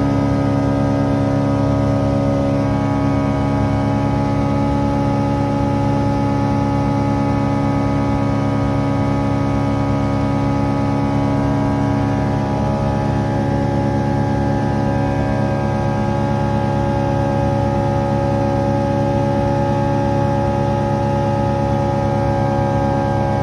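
Just Aircraft Highlander light aircraft's engine and propeller running steadily at constant power, an even droning tone with a slight shift in pitch about halfway through.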